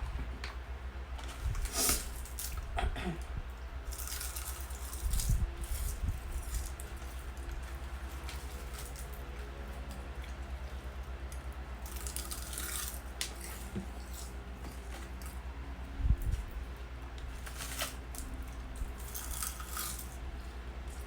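Close-miked eating of roasted seaweed sheets: scattered crisp crunching and crackling in short bursts, with two low thumps, one about five seconds in and one past the middle.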